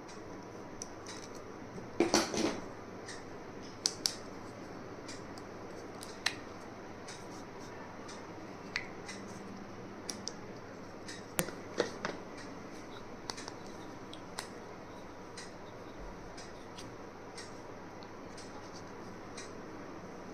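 Small plastic stationery items and packaging being handled: scattered light clicks and rustles, with a louder clatter about two seconds in and a few sharper clicks near the middle.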